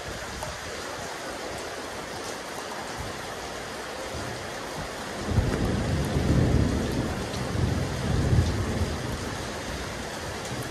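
Rain falling steadily on a rooftop terrace, an even hiss of many drops. About halfway through, a low rumble swells for a few seconds and then fades.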